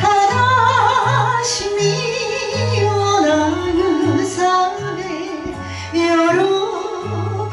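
A woman singing a Shōwa-era Japanese wedding song into a microphone, her held notes wavering with vibrato, over instrumental accompaniment with a stepping bass line.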